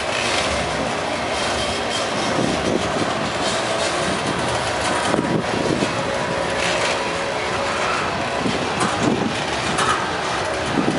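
Freight train of covered hopper cars rolling past close by: a steady rumble of steel wheels on the rails, with irregular clacks from the wheels crossing rail joints.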